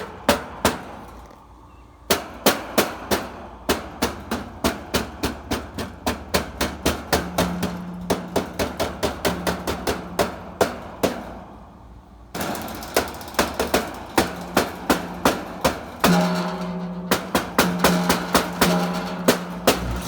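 Repeated tapping on an outdoor air-conditioning unit, two to three knocks a second with two short pauses. A low electrical hum comes and goes among the taps, the sign of an intermittent short in the unit, which the owner traces by tapping on it.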